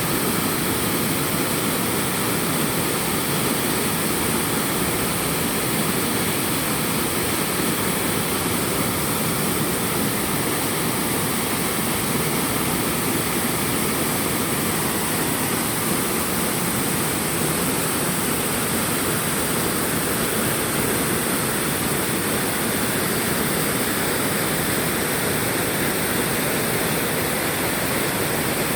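Waterfall rushing in a steady, unbroken roar of falling water.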